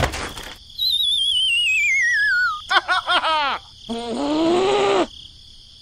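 Cartoon sound effects for a clay figure falling over in sand: a sharp thump at the start, then a long, wobbling whistle that slides down in pitch, followed by quick squeaky chattering and a drawn-out cartoon voice sound. A steady high chirring runs underneath.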